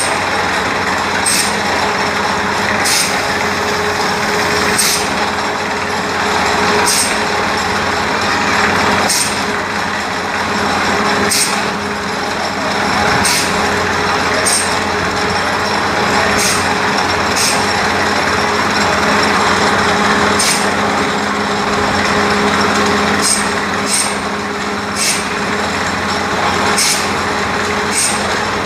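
Borewell drilling rig running: a steady din of engine and compressed-air hiss, with sharp clicks about every one and a half to two seconds.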